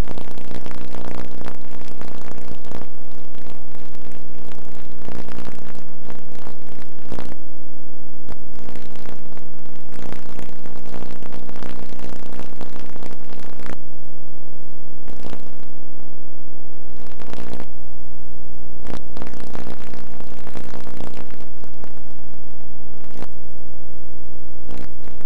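A loud, steady buzzing hum made of many even tones, with dense crackling over it that thins out about halfway through.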